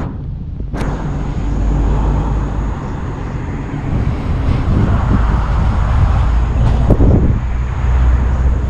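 Wind buffeting the microphone: a loud, steady, low rumble, with a brief click about seven seconds in.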